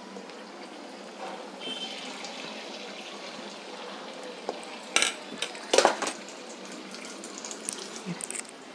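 Banana appams deep-frying in hot oil, a steady bubbling sizzle. Two sharp knocks about a second apart, near the middle, come from a utensil against the pan.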